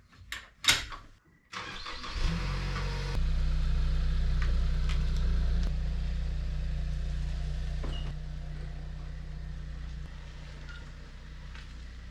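A few sharp knocks, then an engine cranks and catches about two seconds in. It runs fast at first and settles to a steady idle.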